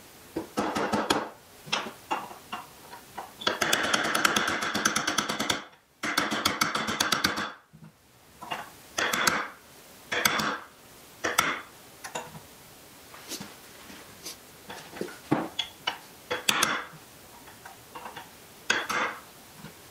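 A claw hammer striking a punch to drive a new front sight into the dovetail of a Sig P320 pistol slide: metal-on-metal taps. Runs of quick light taps come in the first half, then single harder strikes about a second apart.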